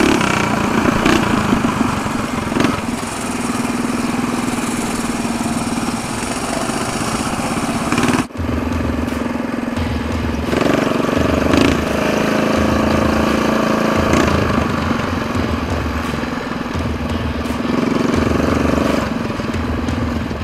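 Mini bike engine running under way, with heavy wind noise on the microphone; the sound breaks off for an instant about eight seconds in.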